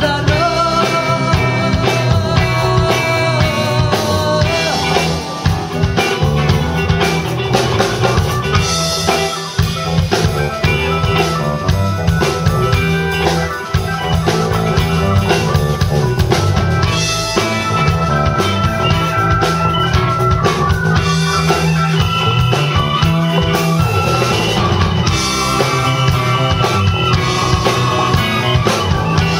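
Live band playing an instrumental stretch of a rock song, with no singing: electric guitar and keyboard melody lines with long held, wavering notes over a steady drum kit beat.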